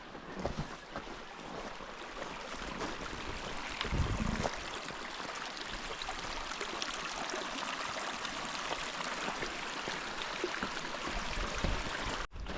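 Creek water flowing over rocks, a steady rushing hiss, with a low thump about four seconds in.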